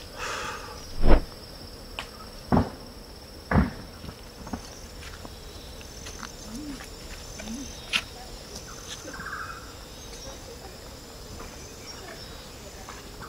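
Insects giving a steady, high-pitched drone, with three heavy thumps in the first few seconds.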